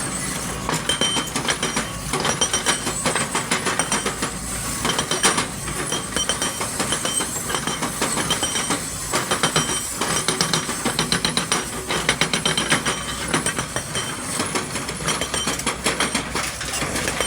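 XCMG excavator loading, with continuous metallic clinking and clattering over the steady low hum of its engine.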